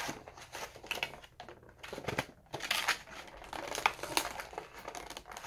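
Clear plastic toy packaging crinkling and crackling in irregular bursts as hands handle and work at it to get it open.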